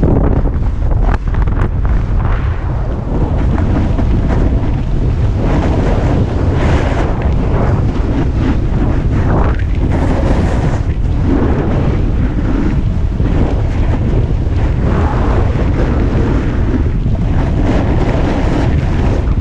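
Heavy wind buffeting the microphone at riding speed on a snowboard descent, a steady low rumble, with the board's edges scraping and hissing over packed snow, swelling now and then through the turns.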